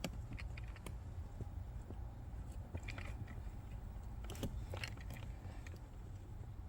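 Scattered light clicks and crackles of a wire being fed through a slot in plastic car interior trim, over a low steady rumble.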